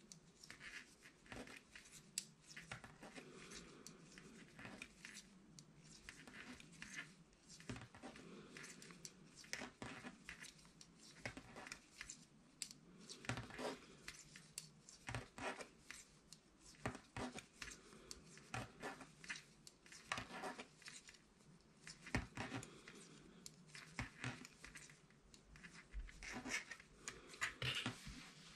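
Metal knitting needles clicking and scraping against each other as stitches are worked, with yarn rubbing over them: faint, irregular small ticks, with louder handling near the end.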